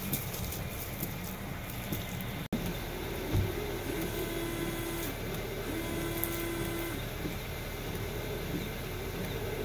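Windshield wipers sweeping back and forth across a wet windshield on freshly fitted AERO Voyager blades, the wiper motor giving a short whine with each stroke over a steady low hum.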